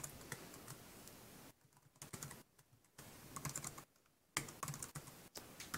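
Typing on a computer keyboard: faint, irregular runs of key clicks with a few short pauses between them.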